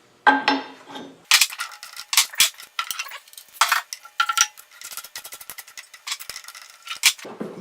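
Small metal hardware being handled and rummaged through: a knock with a short metallic ring, then a quick, irregular run of clinks and rattles of small metal pieces against each other.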